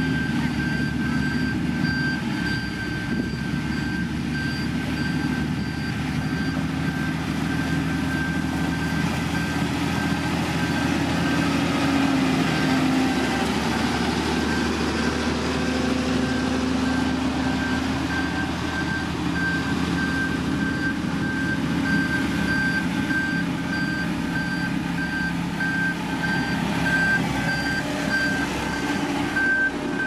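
Diesel engine of a heavy road-building machine running and working under changing load, with its reversing alarm beeping steadily.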